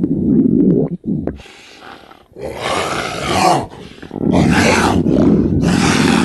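Exaggerated cartoon sound effect of a hungry stomach growling, in three long, loud, deep rumbling bursts.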